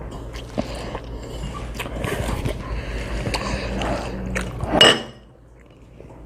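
Eating noises: scattered clicks and scrapes of utensils against a bowl, with noodles being eaten, and one brief louder burst about five seconds in.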